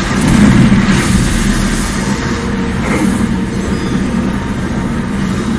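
Steady low rumbling noise from the anime's soundtrack, swelling briefly about a second in.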